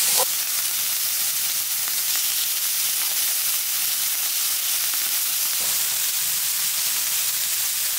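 Lamb chops sizzling on a hot cast-iron cauldron-lid griddle (sotttukkeong): a steady frying hiss of meat and fat searing.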